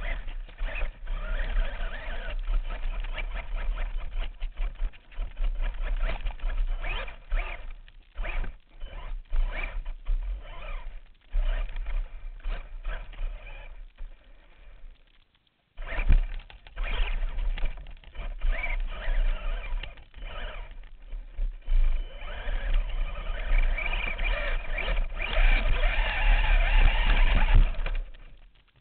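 Radio-controlled car's motor and gears whining, the pitch rising and falling with repeated bursts of throttle, over a heavy low rumble. The sound drops out briefly about halfway through, then comes back.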